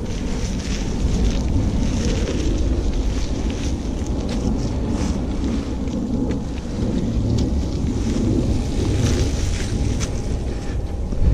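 Wind rumbling on the microphone of a camera on a moving bicycle, over the noise of tyres rolling on packed dirt and dry leaves. Short clicks and rattles come from the bike running over the rough trail.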